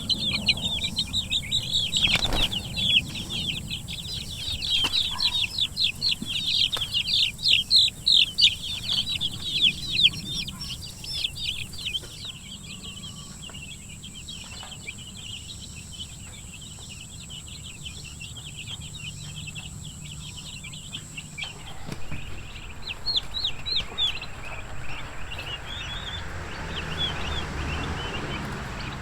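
A crowd of young Freedom Ranger broiler chicks peeping, dense and busy for the first twelve seconds or so, then thinning to scattered peeps. A steady rushing noise comes in after about twenty seconds, with a few more bursts of peeping near the end.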